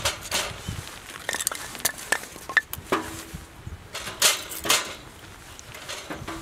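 Split firewood logs being set down and stacked, knocking against each other and the metal fire pit: irregular wooden clunks and clinks, a few with a short metallic ring.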